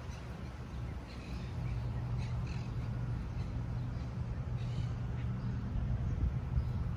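Several short bird calls over a steady low rumble.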